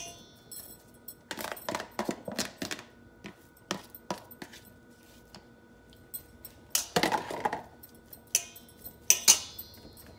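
A utensil scraping and tapping chopped boiled egg out of a plastic container into a stainless steel mixing bowl: a string of scrapes, clicks and clinks, with a longer scrape about seven seconds in and a sharp clink about nine seconds in.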